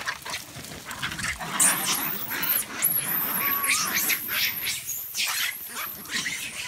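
Macaques screaming and shrieking as they fight and chase each other: a dense run of overlapping high, harsh screeches that swells about a second and a half in and carries on to the end.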